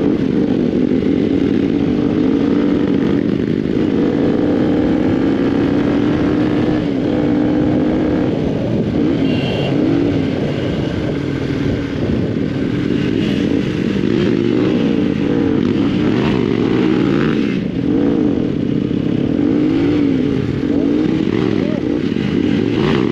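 Motorcycle engine running while riding, its pitch rising and falling repeatedly with the throttle.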